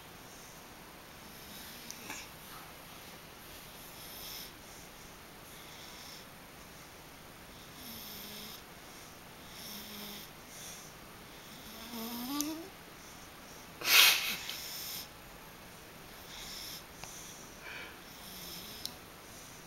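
A sleeping pet snoring softly, a breath about every two seconds, with a short rising whine near the middle as it dreams, and one loud sudden breath about two-thirds of the way in.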